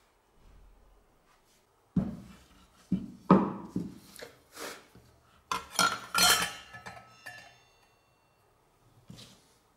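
Handling sounds: a run of sharp knocks and metallic clinks, with a short ring near the end of the run, as a steel circular saw blade and plywood saw parts are set down and the blade is fitted onto its arbor bolt.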